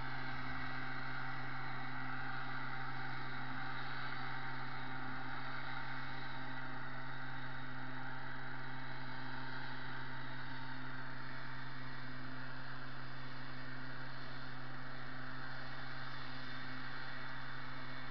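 Engine of a motorized pesticide sprayer running steadily at a constant speed, a low, even hum that does not change.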